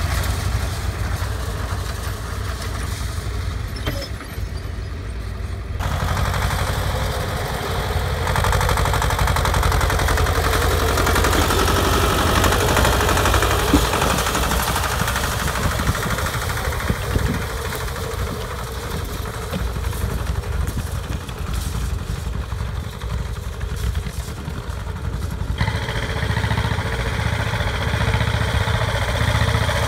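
Air-cooled diesel engine of a small Soviet wheeled tractor running steadily under load while it pulls a finger-wheel hay rake. The sound changes abruptly about six, eight and twenty-six seconds in.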